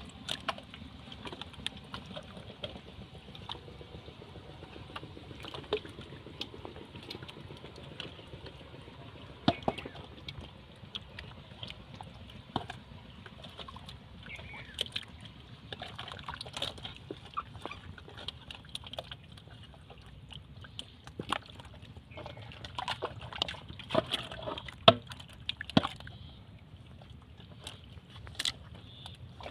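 Thin mud and water sloshing and splattering as bowls scoop through a muddy pit, with irregular wet splats and clicks that come thicker and louder toward the end.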